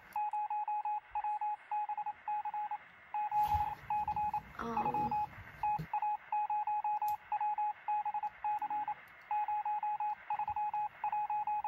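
Electronic beeping sound effect: a single steady-pitched tone keyed on and off in quick irregular groups of short and longer beeps, like Morse code. A brief falling sound cuts in about halfway through.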